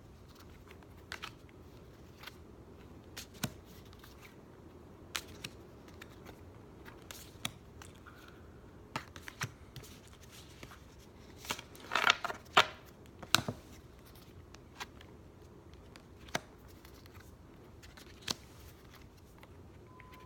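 Trading cards being handled and flicked through one by one: scattered soft snaps and clicks of card stock, with a louder cluster of rustling and snapping about twelve seconds in.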